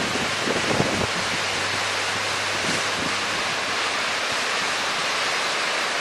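Waterfall's steady roar of white water pouring over rock and churning into the pool below.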